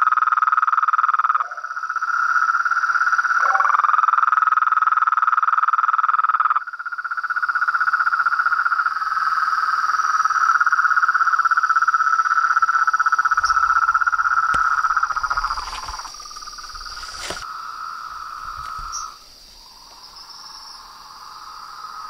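Night chorus of frogs and toads: a loud, continuous pulsing trill over a steady high-pitched buzz. The trill weakens about 16 seconds in, almost stops around 19 seconds, then picks up again.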